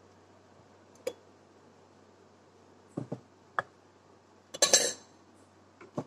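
A clay pot and a ceramic jug being moved about on a refrigerator shelf: a few separate light knocks and clinks, with the loudest clatter about five seconds in.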